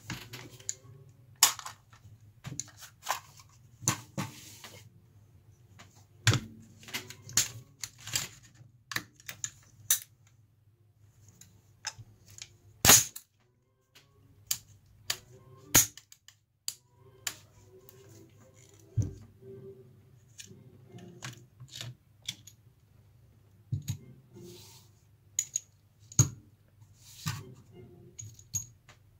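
Irregular sharp clicks and clacks of a SIG Sauer 516 Patrol rifle being handled by hand: its parts knocking, the magazine coming out and the rifle being turned over and set down on a cloth. One knock about halfway through is the loudest, over a faint steady low hum.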